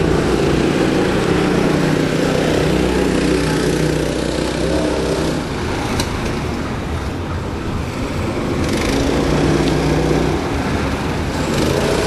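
Small go-kart engines running, with the engine sound swelling and fading a couple of times as the karts' revs rise and fall.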